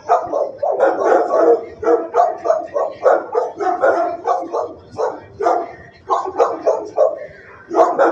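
Shelter dogs barking over and over, a few barks a second, with a short lull near the end.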